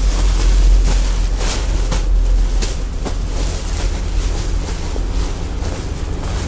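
A steady low rumble, with a few brief crinkles as a folded length of fabric is pulled out of a clear plastic bag and handled.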